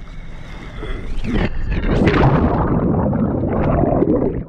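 A plunge into the sea: a splash about a second in, then a loud rush of noisy water lasting a couple of seconds that cuts off sharply near the end.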